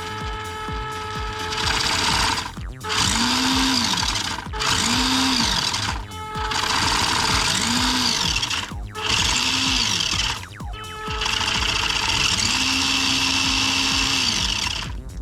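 Small electric drive motor of a toy RC crawler whirring in five short runs, each spinning up, holding and winding down, as the car's wheels are run from the remote. The last run is the longest.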